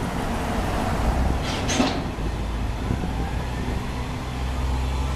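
Open-air parking tram underway: the tractor's engine and tyres rumble steadily over road and wind noise. A brief, sharp high-pitched squeak or rattle comes about a second and a half in.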